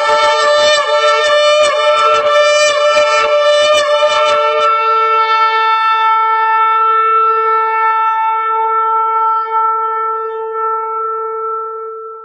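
Shofar blown: a run of rapid, broken short blasts, then one long held blast that fades away near the end.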